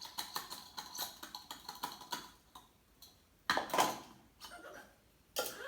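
Quick light clicks, a few a second, then two short rustling scrapes, as powdered dog kibble is tipped and tapped out of a grater into a bowl.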